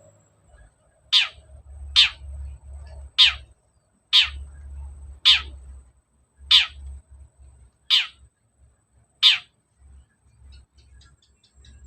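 Long-tailed shrike (cendet) giving a series of eight harsh calls, each a fast downward-sweeping screech, repeated about once every second or so.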